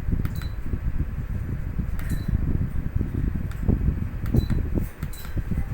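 DC inverter ceiling fan running, its airflow buffeting the microphone with an uneven low rumble. A few short high beeps and clicks cut through it.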